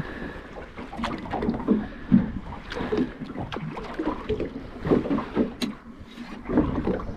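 Small waves slapping and splashing against the side of a boat, an uneven wash with occasional sharper knocks.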